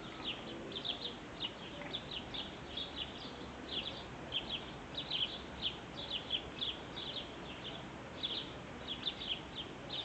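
Small birds chirping: many short, high chirps, several a second, continuing steadily with no pause.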